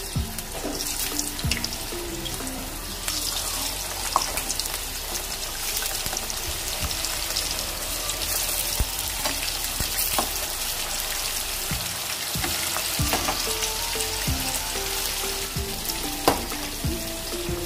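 Whole bitter gourds deep-frying in hot oil in a wok, sizzling steadily, with a few sharp clicks along the way.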